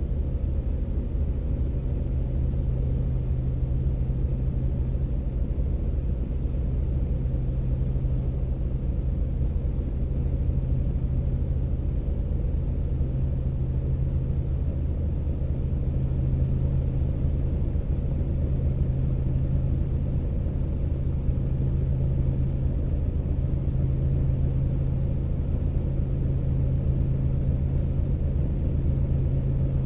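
Car engine idling steadily, a low, even rumble with no change in speed.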